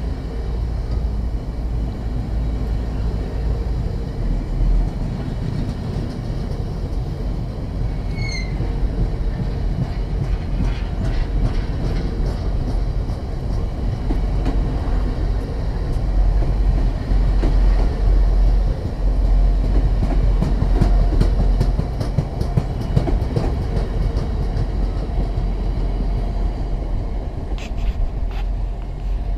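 Freight train of bogie hopper wagons rolling past at speed, a steady heavy rumble with a run of sharp clicks from the wheels in the middle stretch. The sound eases slightly near the end as the last wagon goes by.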